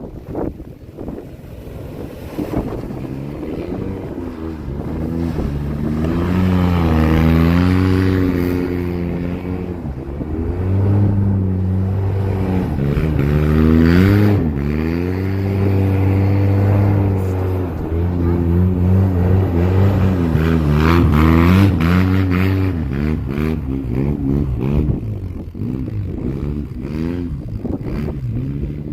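Polaris RZR 800 EFI side-by-side engine running hard during donuts, its pitch rising and falling again and again as the throttle is worked, with steadier stretches in between.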